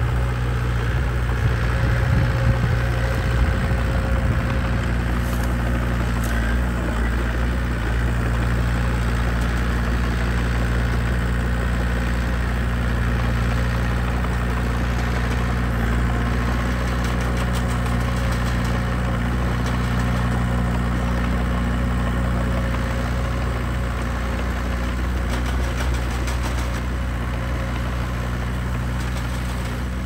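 Heavy diesel engines running steadily, a dump truck's and a small crawler bulldozer's, as the truck raises its bed and tips a load of dirt.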